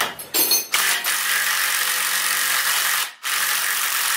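Impact wrench hammering on a rear axle spindle nut to break it loose. It starts about a second in, after a few knocks, and runs steadily in two long bursts with a short pause a little after three seconds in.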